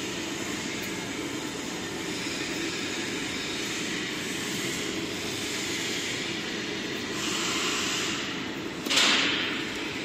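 PVA detergent pod production machine running with a steady mechanical whir and hiss. About nine seconds in comes a short, sharp, louder hiss of air.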